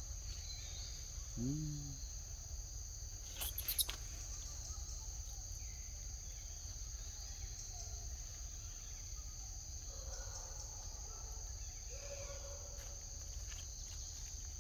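A steady, high-pitched insect chorus of crickets or cicadas. A short call that rises and falls comes about a second and a half in, and a few sharp clicks follow a couple of seconds later.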